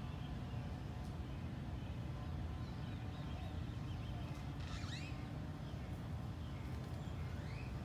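Steady low background rumble, with a few faint short chirps from birds about five seconds in and again near the end.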